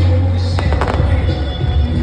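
Fireworks bursting over loud music with a heavy bass line: a quick run of three or so sharp bangs and crackles just over half a second in.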